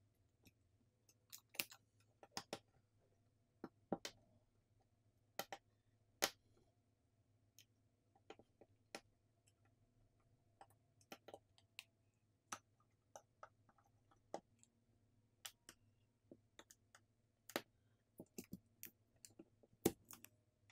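Faint, irregular clicks and taps of a smartphone's small parts and hand tools being handled as the phone is reassembled, with a few louder snaps now and then.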